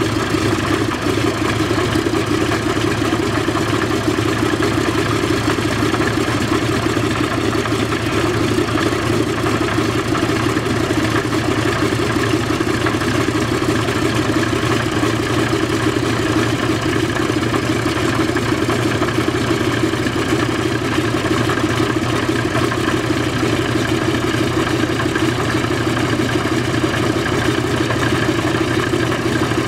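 Pratt & Whitney R-1830 Twin Wasp radial engine of a C-47, run without its cowlings, running steadily to warm up for a compression test.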